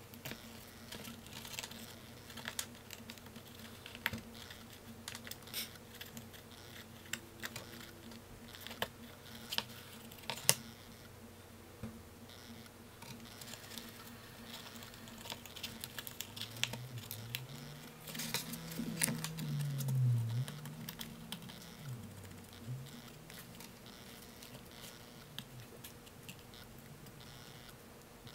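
Irregular small clicks and taps of hands handling thread and tools on a wooden desktop, over a steady low hum. In the second half a low tone rises and falls a few times.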